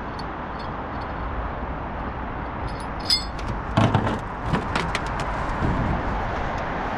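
Steady outdoor background noise, with a single metallic clink about three seconds in, followed by a short run of knocks and clatter over the next second or so.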